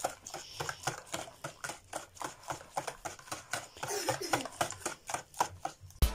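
Wire whisk beating thin kulich batter in a plastic bowl: a quick, even run of clicking, splashing strokes, several a second.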